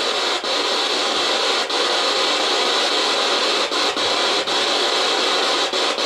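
Steady, loud static hiss, broken by brief dropouts at irregular intervals of about a second.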